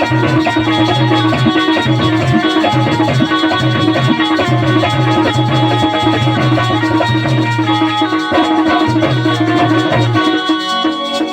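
Instrumental interlude of a Bundeli rai folk song: drums and percussion under sustained melodic instruments. The low drum beat drops out about ten seconds in while the melody carries on.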